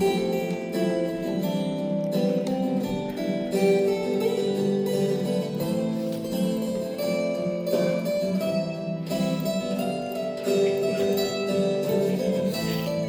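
Instrumental music on a plucked string instrument, a steady flow of ringing notes.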